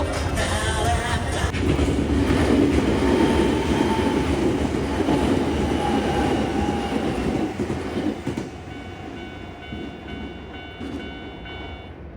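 Loud, steady rumble of a train running past, fading away about eight seconds in, leaving a few faint steady high tones.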